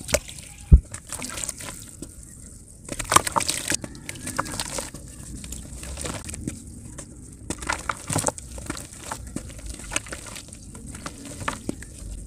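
Dry, sandy mud chunks crushed and crumbled by hand, with irregular crunching and crackling as pieces break off and plop and splash into muddy water, sped up to double speed. One sharp knock stands out under a second in.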